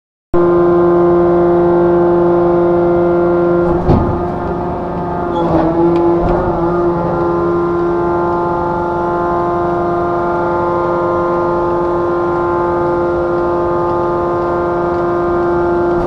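Hydraulic pile-pressing rig running with a steady, even hum while it drives a precast concrete pile, with a few short metallic knocks about four and six seconds in.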